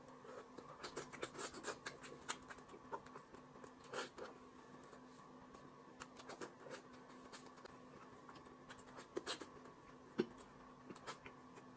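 Faint eating sounds: chewing and lip smacks with quick irregular clicks as cooked chicken is torn apart by hand and eaten, over a faint steady hum.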